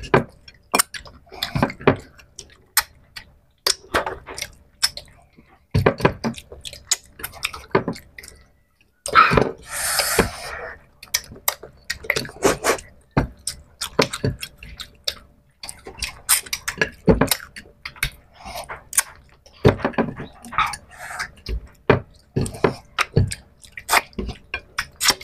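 Close-up eating sounds: wet lip-smacking, chewing and squelching clicks as fish curry and rice are eaten by hand, with a louder hiss lasting about a second around nine seconds in.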